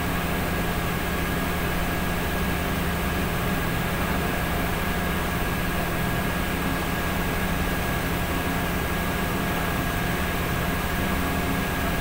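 Steady mechanical drone and hiss of workshop machinery, with two faint steady whining tones above it.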